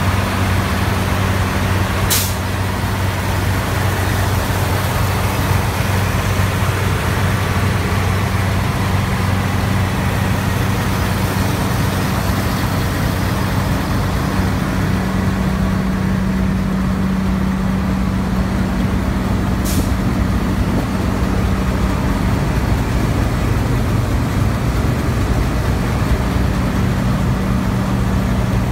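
A New Holland harvesting machine's engine running steadily at close range, a constant deep hum with no change in speed. Two short, sharp high sounds cut through it, about two seconds in and again near twenty seconds in.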